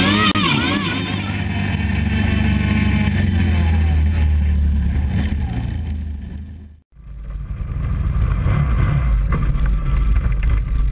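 Can-Am quad (ATV) engine running as it drives through snow, a steady low drone, with the tail of background music fading out in the first second. The sound cuts out abruptly for a moment about seven seconds in, then the engine drone returns.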